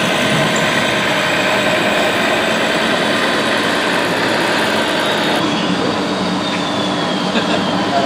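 Scale RC MAN 8x8 tipper truck driving, with a steady diesel engine sound, over background voices. The sound changes abruptly about five seconds in.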